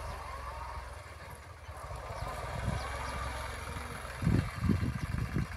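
A tractor's diesel engine running steadily at a distance as it pulls a tine cultivator through the field, with a few irregular low thuds near the end.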